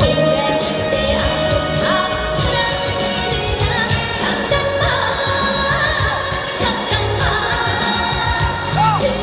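Female trot singer singing live over a loud trot backing track, with long held notes that slide in pitch.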